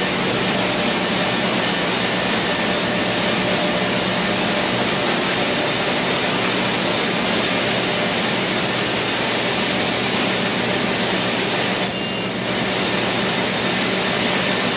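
Steady industrial background noise of a large warehouse: an even rushing sound with a constant low hum from machinery and air handling. A brief high-pitched sound breaks in about twelve seconds in.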